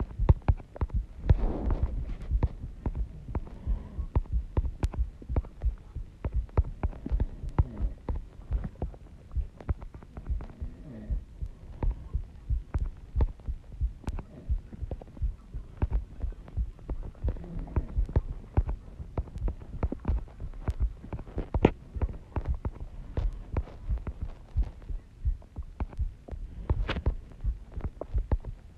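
Fingers tapping on a smartphone's touchscreen keyboard while typing, heard through the phone's own microphone: a rapid, irregular run of dull taps, several a second.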